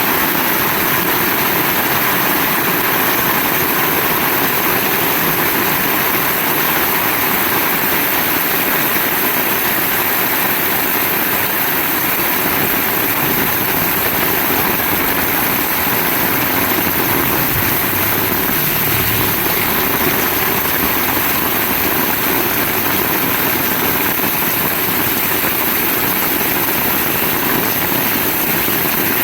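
Heavy rain falling steadily in a continuous hiss, with a faint low rumble a little past halfway.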